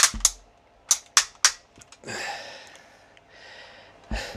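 Hard plastic parts of a large Transformers Supreme Class Starscream figure clicking as its joints and panels are pulled apart and folded by hand: a few sharp clicks in the first second and a half, then two longer rustling sounds, and more clicks near the end.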